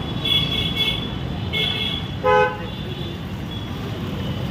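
Vehicle horns honking in street traffic: a few short high honks in the first two seconds, then a lower, louder honk a little past two seconds, over a steady traffic rumble.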